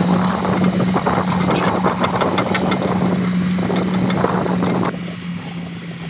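Large crawler bulldozer's diesel engine running under load with a steady drone as it pushes soil, its tracks and blade adding a dense clatter of small knocks and rattles. About five seconds in the sound drops and becomes quieter and more distant.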